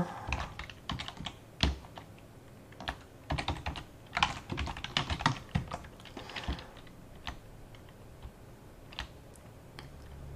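Typing on a computer keyboard: irregular runs of key clicks, thickest in the middle and thinning to a few scattered keystrokes near the end.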